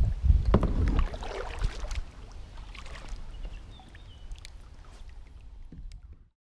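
Low wind rumble on the microphone with a few light knocks from the kayak, dying away and cutting to silence about six seconds in.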